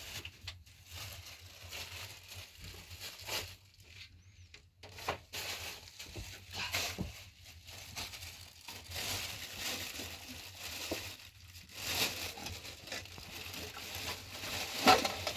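Black plastic garbage bag rustling and crinkling in irregular bursts as it is handled and filled, with a sharper knock near the end.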